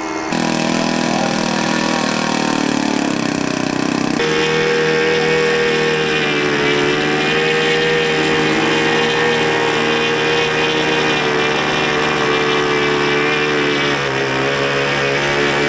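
Model airplane engine of a radio-controlled Spacewalker floatplane running at a steady note while it taxis on the water and lifts off, the pitch shifting slightly near the end.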